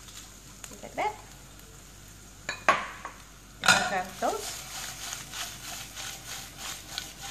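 Garlic, shallots, lemongrass, lime leaves and dried chillies sizzling in a stainless steel pan, with a silicone spatula scraping and the pan knocking as it is tossed. A few sharp metal clatters stand out, the loudest about two and a half and four seconds in.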